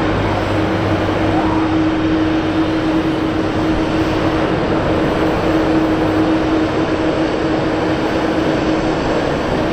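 Jet engines of a McDonnell Douglas MD-11F freighter running at low power as it taxis past: a steady rush with one steady hum, and a lower hum that fades out about a second and a half in.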